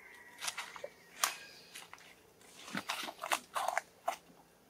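Baby macaque crunching something in its mouth: a string of sharp, irregular crackles, loudest in two clusters a couple of seconds apart.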